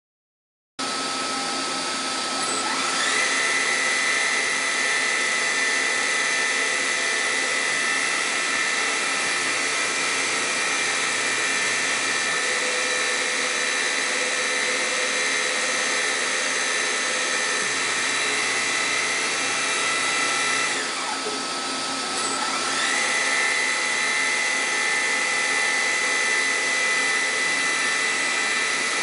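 Emco PC Mill 55 CNC machining center running, its spindle motor giving a steady high whine of several tones. It starts abruptly and rises in pitch as the spindle spins up a couple of seconds in. About three quarters of the way through it drops briefly, then rises again as the spindle spins back up.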